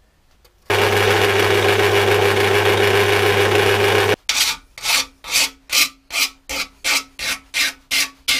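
Metal-cutting bandsaw cutting a 45-degree mitre through steel angle: a loud, steady whir with a low hum that cuts off suddenly about four seconds in. Then a hand file rasping back and forth on the cut steel end, about three strokes a second.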